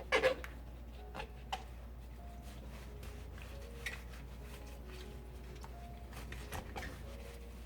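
Celery stalks being handled while washed, making a few scattered soft knocks and rustles, the loudest right at the start.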